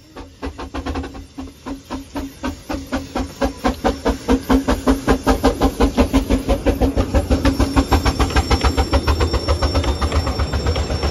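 Narrow-gauge steam locomotive working past close by, its exhaust chuffing in an even beat that grows louder and quicker, with a steady low tone underneath until about eight seconds in.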